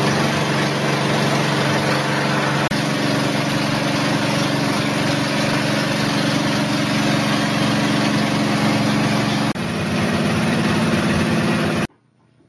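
Steady machine hum with a rushing noise, like a motor or fan running, cutting off suddenly near the end.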